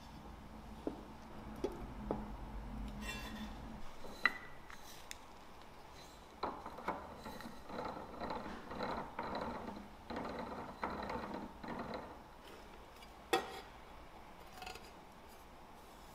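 Kitchen tools being handled on a countertop: light knocks and clinks of a metal bench scraper and rolling pins being set down, with a sharp clink about four seconds in and another about three seconds before the end. In the middle a wooden rolling pin is rolled back and forth over a wire cooling rack, a stretch of quick small rattling taps.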